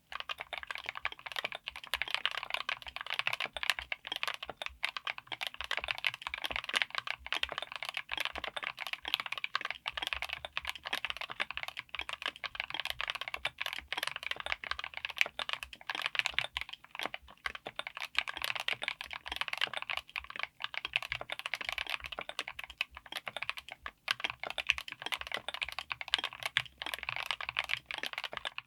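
Continuous fast typing on a mechanical keyboard fitted with Gateron Smoothie Strawberry linear switches (full POM housing and stem), in a Tofu60 aluminum case with an FR4 plate. The strokes come as a dense, steady stream of clicks.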